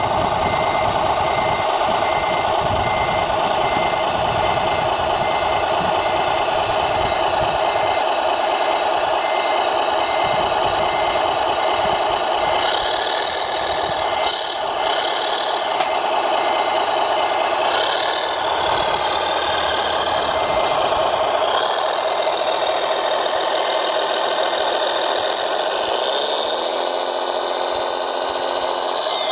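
RC model Liebherr mobile crane at work: a steady engine-like drone with an evenly repeating warning beep. Motor whines rise and fall in pitch as the crane moves, and one rises near the end.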